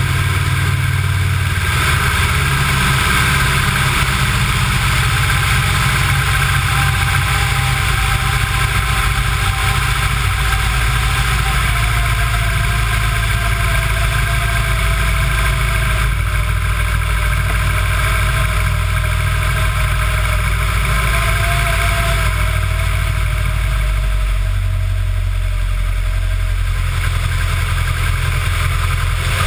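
Wittman Tailwind light aircraft's piston engine and propeller running steadily in flight.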